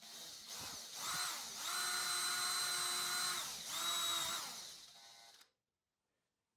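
Electric drill with a twist bit boring into plywood: the motor's whine rises to speed about a second in and holds steady. It dips briefly just past the three-second mark, picks up again, then winds down and stops about five and a half seconds in.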